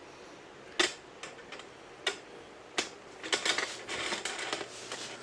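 Sharp metal clicks and clinks from a cam bearing installation tool being tightened onto a cam bearing with a screwdriver: a few separate clicks, then a quick run of clinks with some scraping near the middle.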